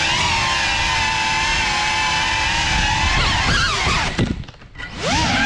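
GEPRC Cinelog35 cinewhoop FPV drone's brushless motors whining, their pitch rising and falling with the throttle. About four seconds in, the throttle is cut: the whine drops sharply and almost fades, then the motors spool back up with a rising whine near the end.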